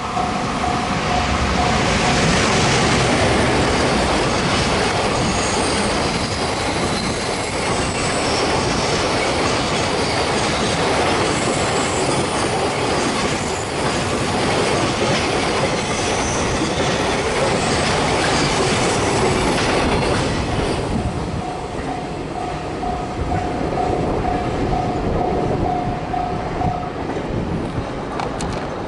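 A train passing over a level crossing: loud rolling wheel-on-rail noise with clickety-clack and some wheel squeal for about twenty seconds, then fading. A Japanese level-crossing warning bell rings with a repeating tone at the start, is buried while the train passes, is heard again once the train has gone by, and stops near the end.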